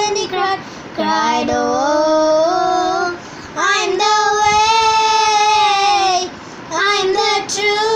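Two young girls singing a gospel song unaccompanied, in phrases with short breaths between them and one long held note in the middle.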